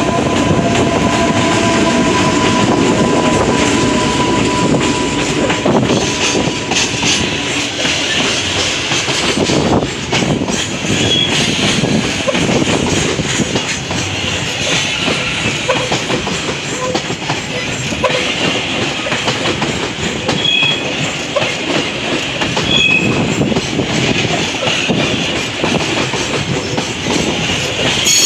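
JR Freight train hauled by an EH500 electric locomotive rolling through the station, with a steady loud rumble of wheels on rail and clickety-clack over the joints. Short high-pitched wheel squeals come and go, and a steady whine sounds in the first few seconds.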